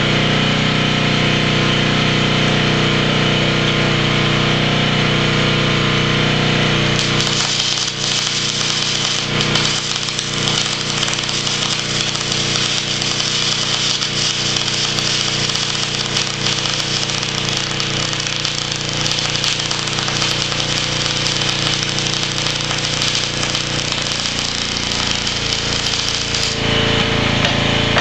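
Engine-driven generator running steadily. About seven seconds in, an arc welder powered by it strikes an arc and crackles and sizzles steadily for about twenty seconds, then stops near the end, leaving the generator running.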